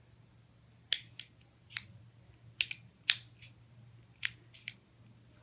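Laptop keys being pressed: about ten sharp, irregular plastic clicks.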